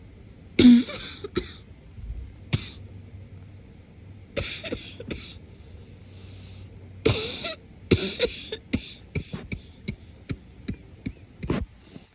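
A woman's congested morning cough, held back and muffled, with a wet, phlegmy sound: several separate coughs, the loudest about half a second in, then a run of short quick coughs in the last few seconds.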